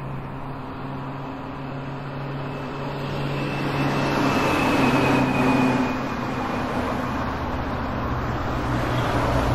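Steady low hum with a rush of noise that swells to a peak about five seconds in and eases off again, like a road vehicle passing.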